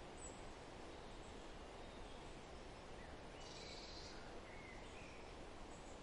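Faint, steady outdoor nature ambience, a low hiss, with a few faint, short bird chirps a little past the middle.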